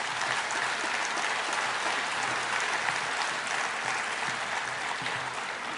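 Audience applauding, a steady clatter of many hands that starts to die away near the end.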